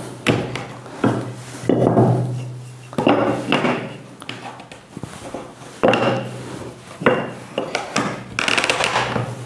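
Wooden blocks and round wooden eccentric cam clamps knocked down onto and slid across a plywood workbench top with dog holes, as the cams are turned to lock a workpiece: about seven sharp wooden knocks, with rubbing and scraping of wood on wood between them.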